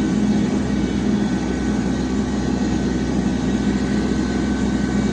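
Tractor engine running steadily while pulling a bush hog rotary cutter: a constant drone with a thin, steady high whine over it.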